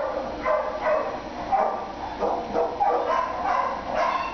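Dogs barking and yipping in shelter kennels: many short calls in quick succession.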